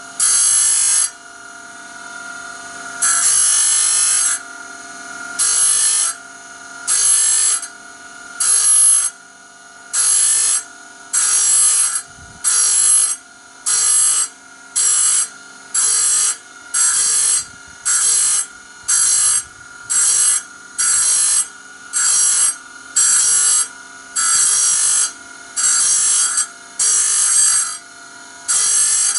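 A power grinding tool sharpening a band saw blade one tooth at a time. The motor runs steadily while the grinding rasp comes in short, regular strokes, about one tooth every second or so, with one longer pass near the start.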